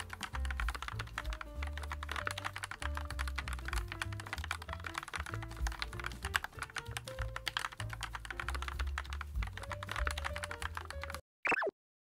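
Fast typing on a JAMESDONKEY RS6 mechanical keyboard with Gateron G Pro switches: a dense run of keystroke clacks over background music with a bass line. The typing and music cut off about eleven seconds in, followed by a short falling tone.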